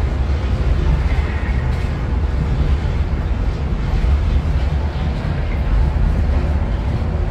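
Ocean Express funicular train running downhill through its tunnel, heard from inside the carriage as a loud, steady low rumble.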